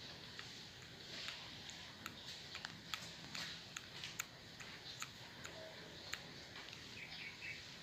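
Faint, irregular light clicks and ticks over a quiet background hiss.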